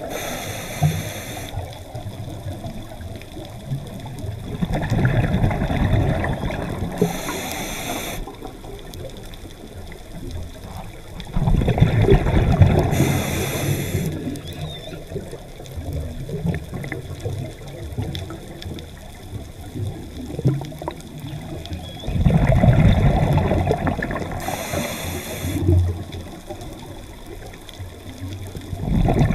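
Scuba diver breathing through a regulator underwater. A hiss comes with each inhale and a rush of exhaled bubbles follows, repeating every few seconds.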